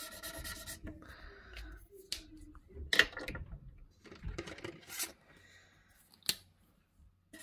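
Alcohol marker scribbling on paper in a short squeaky stroke, then a few sharp clicks and knocks as the marker and its cap are handled, the loudest about three seconds in; another scribbling stroke starts at the very end.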